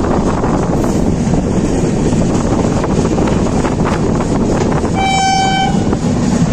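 Steady rumble of the 12822 Dhauli Express train running into a station, with one short, high horn blast lasting under a second about five seconds in.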